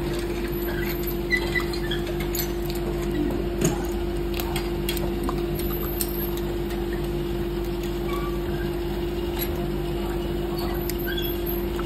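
Steady hum of a running PVC doll-moulding machine, with scattered light metal clicks and short faint squeaks as the mould clamps are handled.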